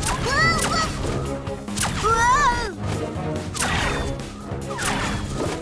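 Cartoon action sound effects over background music: two short warbling, pitched zaps from a shrink ray, near the start and about two seconds in, then whooshes as the flying hero dodges the blasts.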